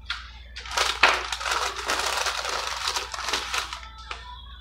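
Paper fast-food packaging crinkling and rustling close to the microphone for about three seconds, as a hand digs a chicken nugget out of its carton.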